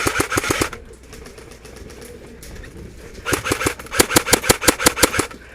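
Airsoft gun firing rapid bursts of shots, about eight a second: a short burst right at the start and a longer burst of about two seconds past the middle.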